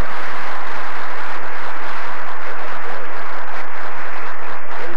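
Studio audience applauding and laughing, a steady crowd noise through the whole stretch.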